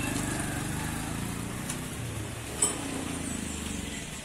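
A motor vehicle engine running steadily and slowly fading away, with a sharp click about two and a half seconds in.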